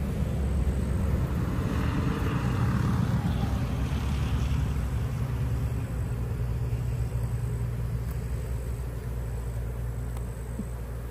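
Steady low hum of a mass of honeybees around an opened hive, easing slowly.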